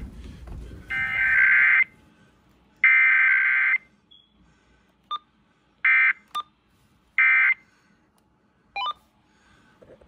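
Emergency Alert System data tones of a required weekly test, played through a Uniden BC370CRS radio's speaker: two harsh, buzzing header bursts of about a second each in the first four seconds, then three short end-of-message bursts roughly a second and a half apart.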